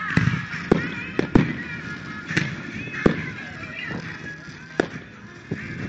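Aerial fireworks shells bursting: about half a dozen sharp bangs at uneven intervals, with the show's music soundtrack playing underneath.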